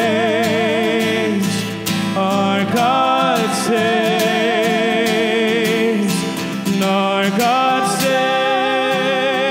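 Church worship band playing a slow worship song, with voices holding long notes with vibrato over guitar and band accompaniment.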